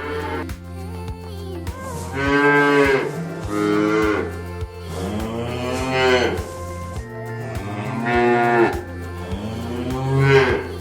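Cattle mooing: about five long lowing calls in a row, each rising and then falling in pitch, over background music with a steady beat.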